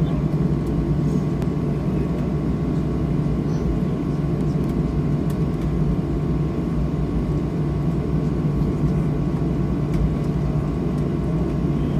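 Cabin noise of a Boeing 737-700 taxiing: the steady rumble of its CFM56 jet engines at low thrust, with a thin steady whine above it.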